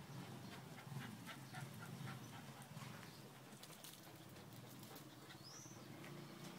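Small dogs playing on dry dirt, faint: panting and paws scuffling, with a short high chirp about five and a half seconds in.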